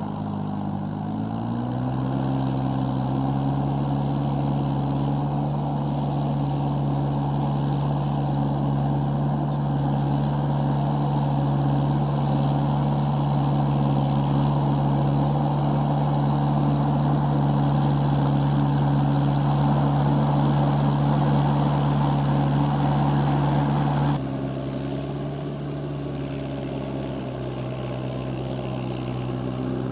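Mahindra tractor's diesel engine working steadily under load while puddling a flooded paddy field on cage wheels. Its pitch rises over the first couple of seconds, then holds. About six seconds before the end it drops suddenly to a quieter, slightly lower note.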